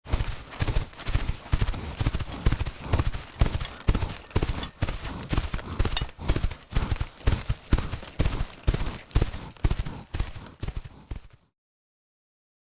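Horse's hooves clip-clopping on hard ground: an uneven run of sharp hoof strikes, several a second, which stops about eleven seconds in.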